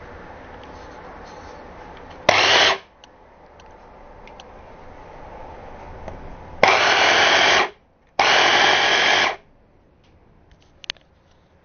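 Excelvan 500W hand blender's DC motor driving its chopper attachment in three short pulses, chopping apple quarters: a half-second burst about two seconds in, then two bursts of about a second each close together in the second half. Each pulse starts and stops abruptly.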